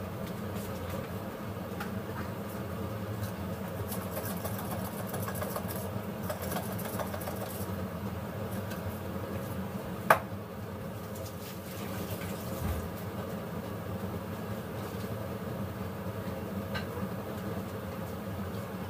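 A pot of food cooking down on the stove, bubbling and simmering steadily with a faint hum, and a single sharp click about ten seconds in.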